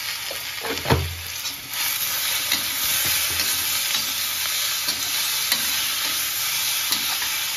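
Onions, tomatoes, garlic and whole spices sizzling in hot oil in an iron kadhai while a steel spatula stirs and scrapes them around the pan, with a knock of the spatula about a second in; the sizzle grows louder after about two seconds. This is the masala base for a gravy being fried until the tomatoes soften.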